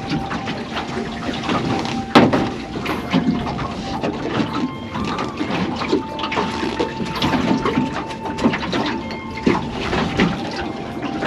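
Water sloshing and gurgling, irregular and continuous, with a faint steady tone under it and a single sharp knock about two seconds in.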